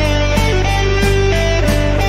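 Background music: a melody of changing single notes over a steady low bass.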